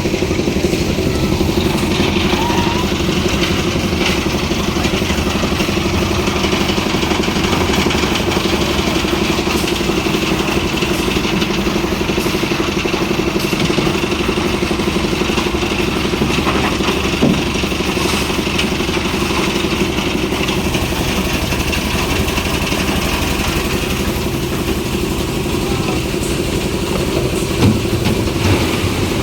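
Engine of concrete-pour site machinery, such as the concrete lift machine, running steadily with an even drone, with a couple of short knocks partway through and near the end.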